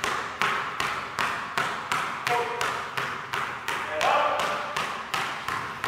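Two basketballs dribbled together on a hardwood gym floor: even, echoing bounces about two and a half times a second. A brief pitched sound rises over the bouncing about four seconds in.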